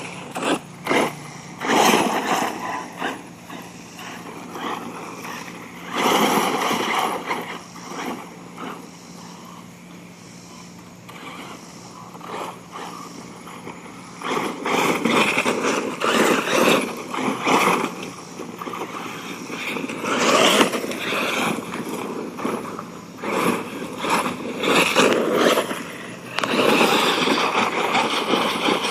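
Hurricane XTE electric RC truggy running on a 5S battery, driven in repeated bursts of throttle with quieter gaps between runs; its brushless motor whines under each burst.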